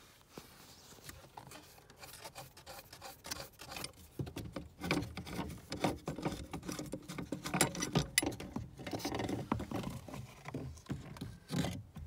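Nuts being backed off the steering-column support bracket and the bracket worked free by hand: irregular rubbing and scraping with small metallic clicks, thickest in the middle of the stretch.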